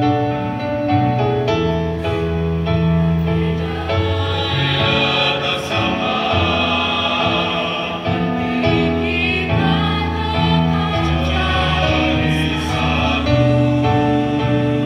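Mixed choir of men's and women's voices singing held chords in several-part harmony, the higher voices swelling louder a few seconds in.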